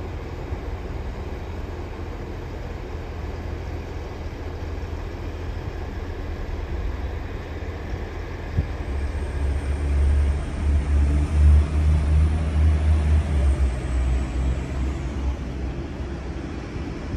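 Railway station ambience with a regional train moving on a far platform: a low rumble swells through the middle, with a faint high whine that rises and then fades.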